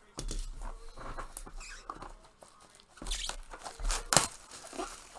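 Packaging of a trading-card box being handled and opened: irregular rustling, crinkling and tearing of cardboard and plastic wrap, with small clicks and knocks.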